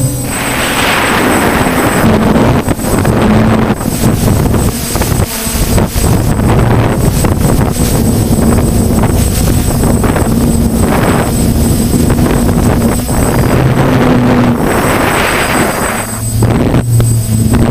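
DJI Flamewheel F550 hexacopter's six motors and propellers running in flight, heard from the camera on board: a low hum that steps up and down in pitch as the motors change speed, with rushes of wind noise on the microphone several times.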